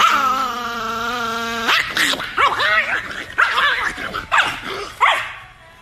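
A long, steady howl-like note, then a chihuahua's rapid run of angry barks and yips that dies away near the end.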